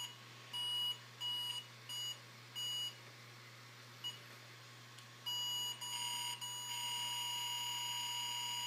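Square-wave beeps from a small speaker driven by the pulse meter's microcontroller, one beep per heartbeat about every 0.7 s. After a short gap, the beeps lengthen, and from about two-thirds of the way in they merge into one steady unbroken tone.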